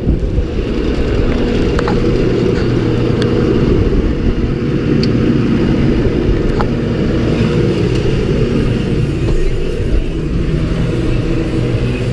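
Tractor's diesel engine running steadily, a loud low drone with a few faint ticks over it.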